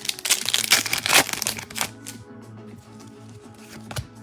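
A foil trading-card pack wrapper torn open and crinkled for about two seconds, over background music that continues after the tearing stops.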